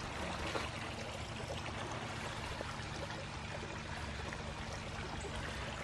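Water running steadily through a carved stone fountain, trickling and spilling over a stone lip into the basin below.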